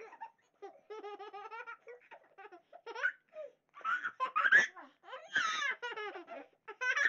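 A toddler girl laughing and giggling: a quick run of short, even 'ha-ha' pulses about a second in, then louder bursts of laughter after about four seconds and again near the end.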